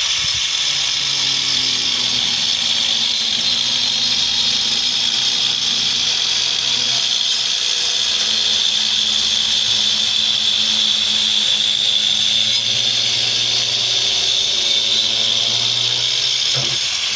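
Handheld electric power tool running steadily on wood, a continuous high hiss over a low motor hum that drifts slightly in pitch as the load changes.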